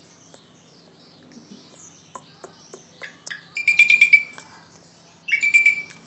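Asian pied starling (jalak suren) calling: a few short clicking notes, then two loud, rapidly pulsed calls held on one pitch, one about three and a half seconds in and the other near the end.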